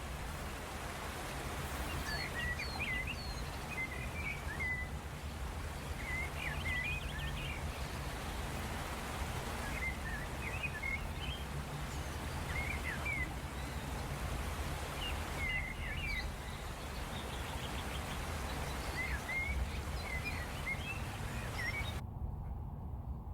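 Small birds chirping in short, repeated calls every second or two over a steady background of outdoor noise with a low rumble. Near the end the higher part of the background noise cuts off suddenly.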